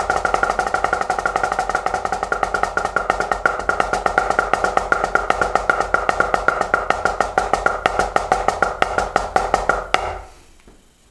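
Drumsticks playing a fast, even run of strokes on a drum practice pad, a dry, slightly pitched tapping; the playing stops abruptly about ten seconds in.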